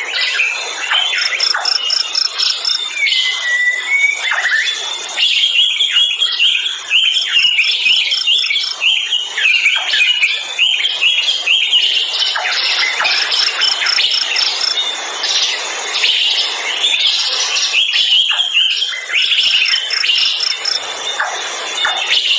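A chorus of many forest birds chirping and whistling over one another. A short, high, rapid trill recurs every several seconds over a steady high insect drone.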